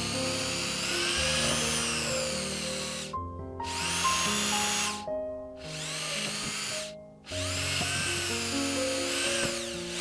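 Cordless drill whining as its bit bores into a hardened epoxy resin panel, the pitch rising and falling with the trigger; it stops briefly three times. Background music plays underneath.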